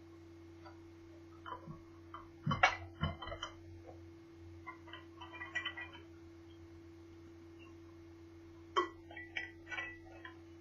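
Scattered short clicks and small clatters of plastic and metal parts being handled during a laptop teardown, in clusters a few seconds apart, over a steady low electrical hum.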